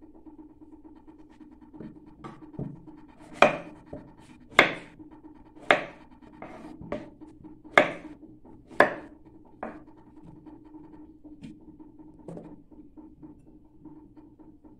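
Kitchen knife slicing through a squash and striking a wooden cutting board: about seven sharp cuts, roughly one a second, starting about three seconds in. A steady low hum runs underneath.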